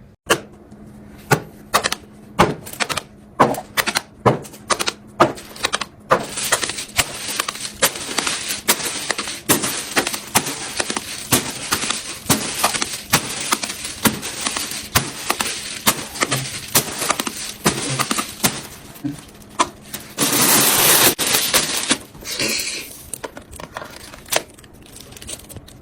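Fidget toys being handled: a long run of sharp, irregular clicks and snaps. A steady hiss runs behind them from about six seconds in, and there is a louder rushing noise about twenty seconds in.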